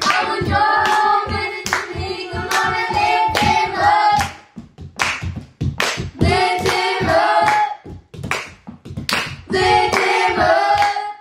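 A group of children singing a worship song together while clapping along to the beat. The singing and clapping stop abruptly at the very end.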